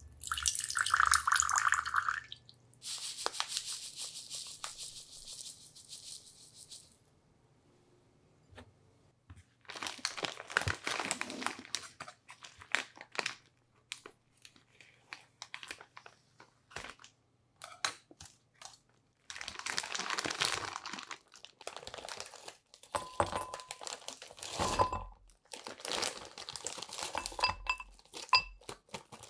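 Plastic bag of frozen mango chunks crinkling and rustling as it is handled and opened. Near the end, hard frozen mango pieces drop and clink against a glass bowl.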